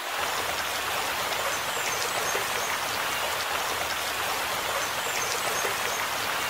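Steady rushing, splashing water, a hiss like heavy rain or a running stream, used as a sound effect.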